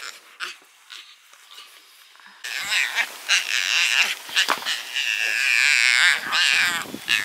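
Young Yucatan black howler monkey yelling in anger. After a couple of seconds of faint clicks, loud, high-pitched, wavering cries start about two and a half seconds in and keep going.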